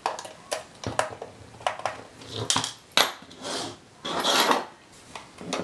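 Plastic case of a handheld shot timer being taken apart by hand with a small screwdriver: a run of small clicks and clinks of plastic parts and tiny screws, the sharpest about three seconds in, then a longer scraping rattle about four seconds in.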